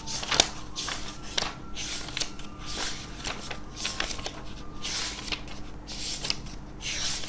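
Pages of a textbook being turned one after another, a rustle of paper about every half second.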